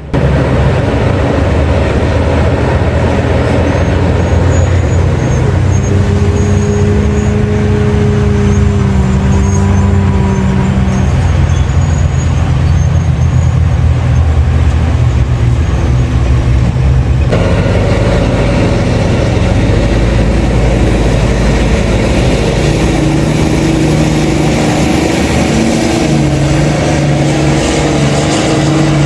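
Large diesel engines of heavy mining machines, a mining excavator and a haul truck, running steadily under load. The sound changes abruptly about two-thirds of the way through.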